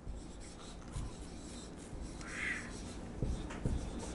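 Marker pen writing on a whiteboard: faint rubbing strokes of the tip, with a brief higher-pitched scrape a little over halfway through and a few soft taps.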